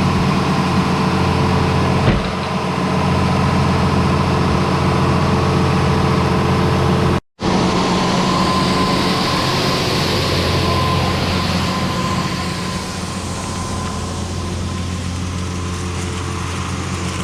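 Tractor diesel engine running steadily, with a thin steady whine over it. The sound cuts out completely for a moment about seven seconds in.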